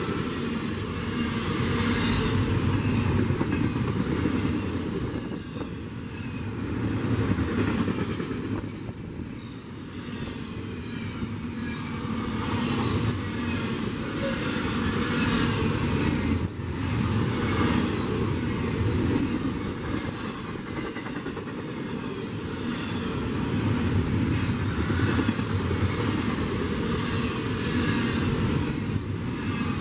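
Double-stack intermodal freight train rolling past: steel wheels on the rails, with a steady rumble and repeated clicks as the wheelsets cross rail joints. The sound swells and dips as the container well cars go by.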